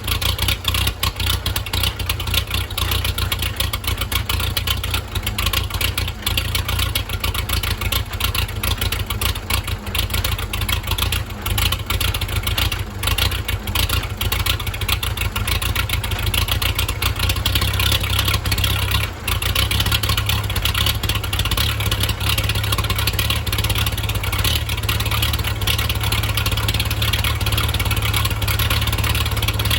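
The diesel engine of a 1963 Case 310F bulldozer running steadily just after a cold start at about 35 °F without starting fluid or grid heater. Its running note shifts slightly about 18 seconds in.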